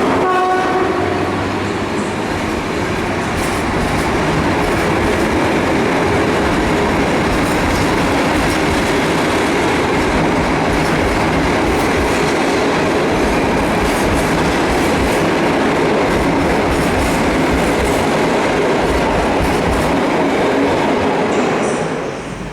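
Train running past on the rails: steady, loud wheel-and-rail noise with clickety-clack over the rail joints, dropping away suddenly near the end.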